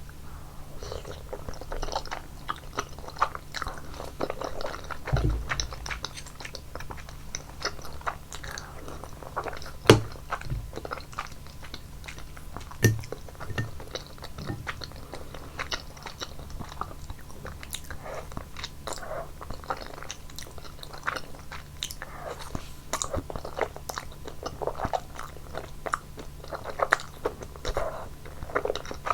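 Close-miked chewing of basil cream buldak udon, thick noodles in a creamy spicy sauce: wet mouth sounds and small smacks throughout. Two sharp clicks stand out, the loudest about ten seconds in and another about three seconds later.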